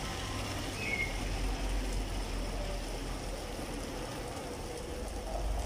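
Steady rain falling on a wet cobblestone street, with a low rumble underneath.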